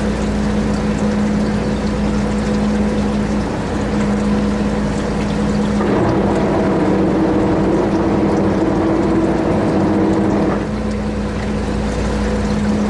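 Boat engine running steadily with a constant drone. From about six seconds in to about ten and a half seconds a second, higher engine tone joins and then drops away.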